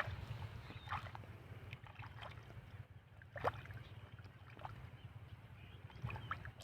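Water sloshing and splashing in short bursts, about half a dozen times, over a steady low rumble: water being stirred while net-fishing in shallow water.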